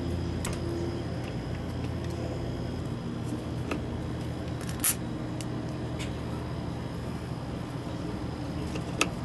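A screwdriver working the screw of a barrier terminal block to fasten a crimped ring terminal, giving a few faint metal clicks, the sharpest about five seconds in and another near the end, over a steady low hum.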